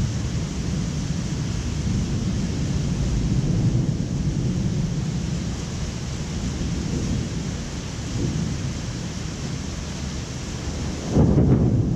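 Thunder rumbling continuously, swelling and fading, over a steady hiss of rain. A sudden louder low burst comes near the end.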